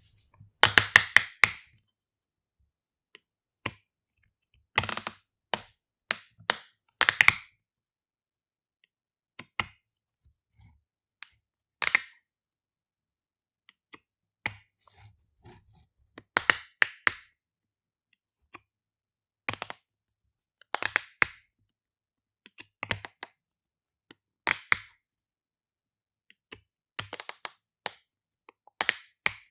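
Shampoo bottle cap being opened and closed over and over: short clusters of sharp clicks and snaps, separated by silent pauses of one to three seconds.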